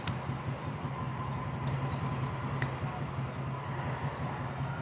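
Steady low hum in the background, with three small sharp clicks: a thin screwdriver ticking against a metal clutch booster piston as a rubber cup seal is levered onto it by hand.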